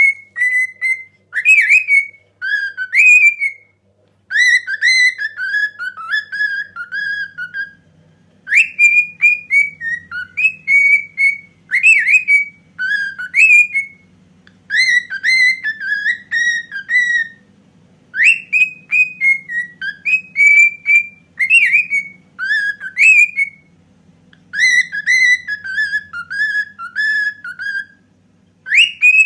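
Cockatiel whistling a Mehter march melody: phrases of short notes that slide up and down, repeated with brief pauses between them.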